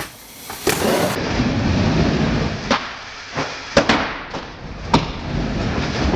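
Skateboard wheels rolling on a plywood mini ramp in a steady rumble, broken by about five sharp clacks as the board and trucks hit the ramp, two of them in quick succession near the middle.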